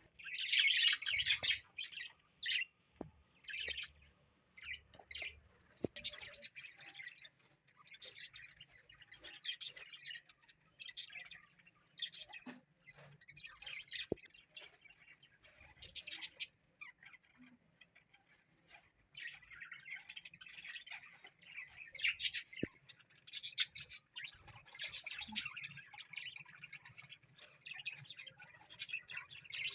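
Pet parrot chirping and calling in many short bursts, loudest in the first couple of seconds.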